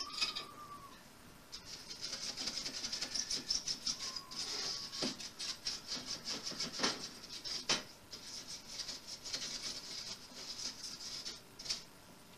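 Quick, scratchy brushing strokes in runs as a brush scrubs caked dust off the inside of a desktop PC case, with a couple of light knocks against the case.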